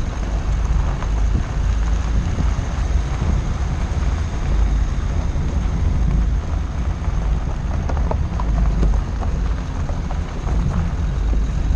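Dacia Duster driving a rough dirt and gravel track, heard through a microphone mounted on the outside of the car: a steady heavy rumble of wind and road noise, with the crunch and scattered ticks of tyres over loose stones.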